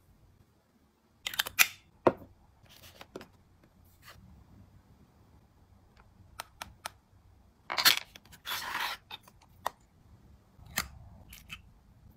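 Skincare packaging being handled: scattered sharp clicks and taps on a cardboard box and bottles, with a louder short scrape about two-thirds in.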